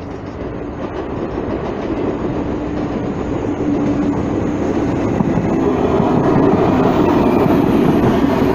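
A TGV Atlantique high-speed train approaches and runs past, its rolling noise growing steadily louder as the cars go by.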